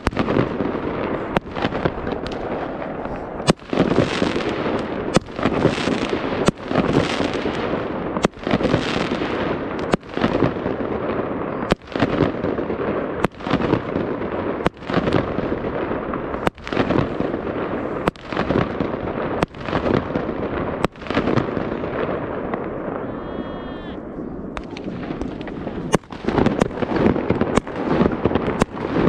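New Year's aerial fireworks bursting overhead, a steady run of sharp bangs about every one and a half seconds with crackling between them. A brief wavering whistle comes about two-thirds of the way through, followed by a short lull before the bangs resume.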